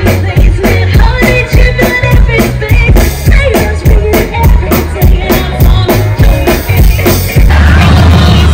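Amplified live pop-rock band: a woman singing over drum kit and electric guitar, loud, with a steady drum beat. About seven and a half seconds in the drumming stops and a low chord rings on.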